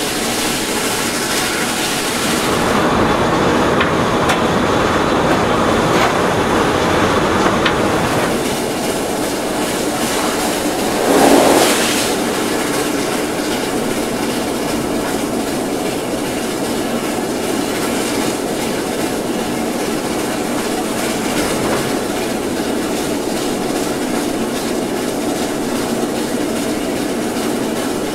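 LNER Class A4 steam locomotive running at speed, heard from close beside its wheels and casing: a steady rush and rumble of wheels on rail, with a brief louder surge about eleven seconds in.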